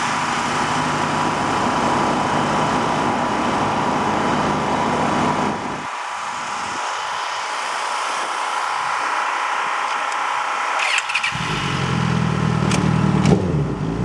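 Racing sportbike's engine fired up about eleven seconds in and idling, with a throttle blip rising and falling near the end as the pit stop finishes. Before that, a steady engine drone runs for the first half, with a few sharp clicks late on.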